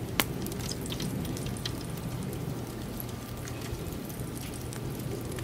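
Wood fire crackling and popping under a spit-roasting prime rib, with fat sizzling over a steady low hiss; one sharp pop about a quarter second in.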